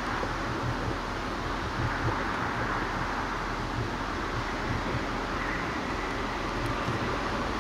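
1945 GMC DUKW amphibious truck's six-cylinder engine running steadily as the truck climbs out of the water up a ramp, with water churning at its stern and wind on the microphone.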